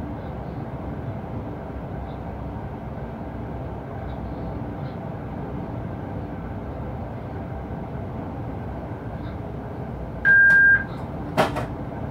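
Steady running noise inside an electric locomotive's cab as the train moves. Near the end comes a short, loud, single-pitched beep lasting about half a second, followed about a second later by a couple of sharp clicks.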